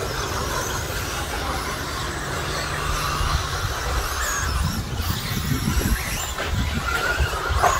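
Electric RC stadium trucks with 13.5-turn brushless motors racing on a dirt track: the motors whine, rising and falling in pitch as they accelerate and brake, over a low steady hum that drops out about halfway.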